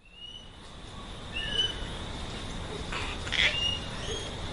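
Birds calling outdoors: several short, high chirps and one harsher, noisier call about three seconds in, over a low steady rumble. The sound fades in at the start.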